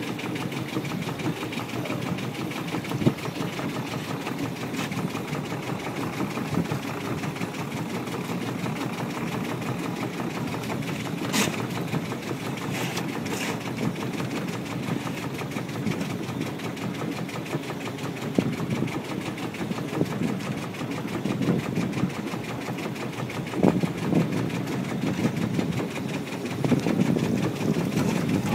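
Small fishing boat's engine running steadily while the pot hauler winds a lobster pot's line up from the sea, with a few short knocks and a slightly louder stretch near the end.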